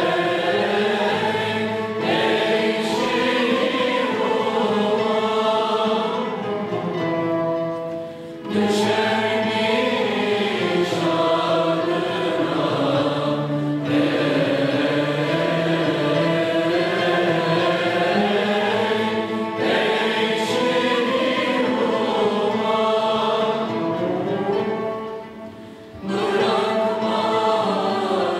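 Mixed choir singing a Turkish classical song in the kürdilihicazkâr makam, accompanied by a traditional Turkish art-music ensemble. The music drops briefly between phrases about eight seconds in and again near the end.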